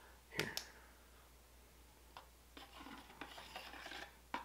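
Faint handling noise: a plastic flying disc and a UV flashlight rubbing and tapping in the hands, with a couple of small clicks about half a second in.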